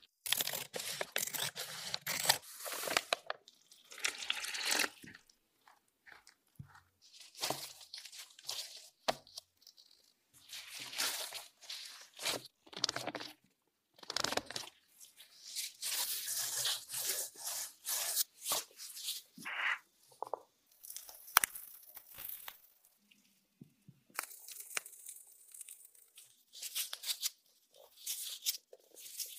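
Close-up food-handling sounds of soft, sticky mochi dough being worked by gloved hands: irregular squishing and tearing bursts as the dough is pulled apart, cut and wrapped. The middle section includes a plastic scraper cutting the dough on a pastry mat.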